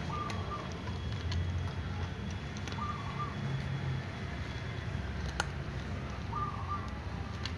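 Cats eating dry kibble from a plastic tub, heard as scattered small clicks over a steady low background rumble. A short, level whistled call, like a bird's, sounds three times a few seconds apart.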